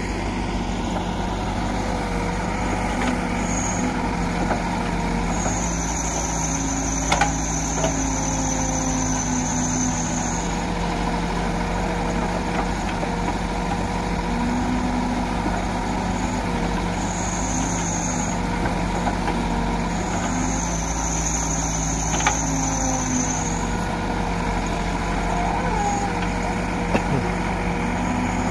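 Case backhoe loader's diesel engine running steadily as it digs and swings its loaded bucket. A high whine comes and goes twice, and there are a few sharp knocks.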